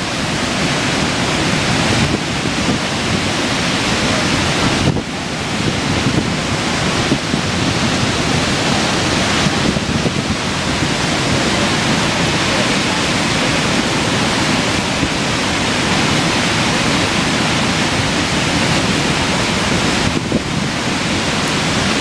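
Lower Falls of the Yellowstone River: a large waterfall's steady, loud rush of plunging water, heard close up from above the drop.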